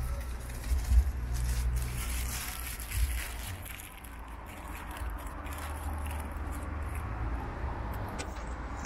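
Cats eating dry kibble off paving stones, with scattered small crunching clicks over a steady low rumble.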